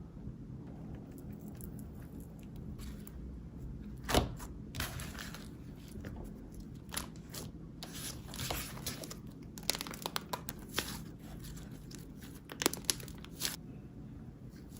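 Slime being squeezed and stretched by hand: irregular sticky crackles and small pops, the loudest snap about four seconds in, with further bunches of crackling later on.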